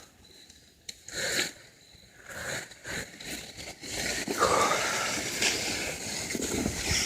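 Rustling and scraping of footsteps through grass and brush: a few scattered rustles at first, then steadier from about four seconds in.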